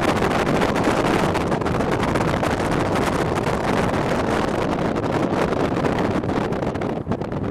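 Steady rush of wind noise on the microphone mixed with the running noise of a moving vehicle, easing slightly near the end.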